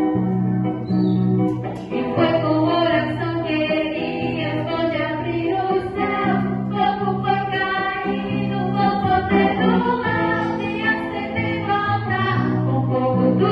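Gospel song: voices singing a melody over steady instrumental backing.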